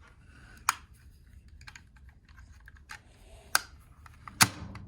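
Small plastic toys being handled: scattered light clicks and rattles, with a sharp knock under a second in, another at about three and a half seconds, and the loudest just before the end.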